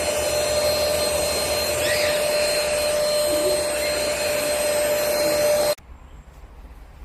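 Cordless stick vacuum cleaner running steadily with a high-pitched whine, then cutting off abruptly near the end as it is switched off.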